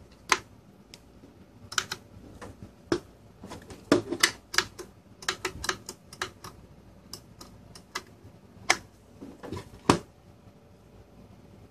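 Irregular plastic clicks and knocks as cable plugs are fitted into a Kingwin EZ-Dock hard drive dock and its plastic housing is handled, stopping about ten seconds in.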